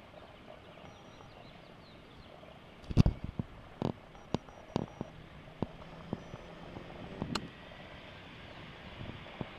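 A run of sharp, irregularly spaced clicks and knocks over a faint steady hiss, the loudest about three seconds in.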